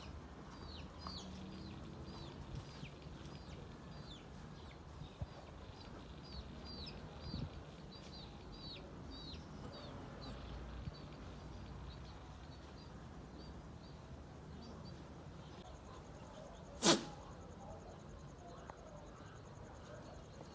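Birds giving short, high chirps over and over, two or three a second, fading out about 15 seconds in. About 17 seconds in comes a single sharp, loud knock.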